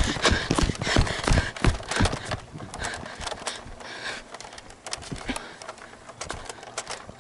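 Quick irregular knocks and rustling, like footsteps and handling noise on a camera carried by someone moving about. The knocks are dense for the first couple of seconds and then thin out to scattered clicks.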